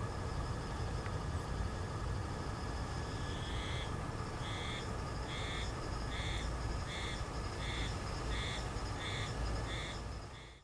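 Outdoor ambience with a steady low rumble; about three and a half seconds in, a bird starts a regular series of short harsh calls, about ten of them, roughly one and a half a second.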